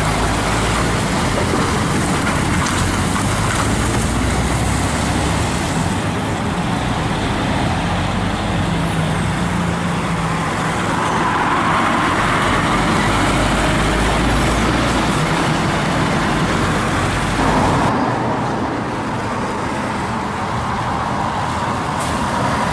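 Heavy diesel lorries, MAN and Scania trucks, driving past one after another at low speed. Engines pull under load over steady tyre and road noise. The sound changes abruptly about three-quarters of the way through as a different truck comes in.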